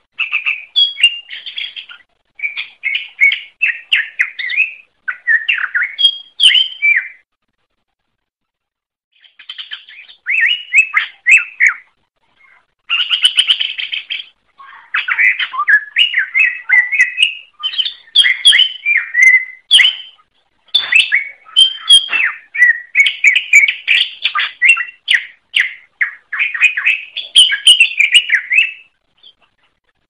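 Green leafbird (cucak ijo) singing: loud, rapid, varied chirps and whistles in long runs, with a pause of about two seconds near a quarter of the way in.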